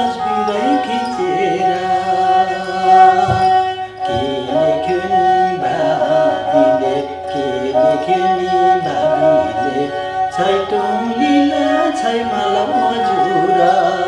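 Nepali sarangi, a bowed folk fiddle, playing a traditional folk tune (dhun), with a steady high drone note held beneath the shifting melody.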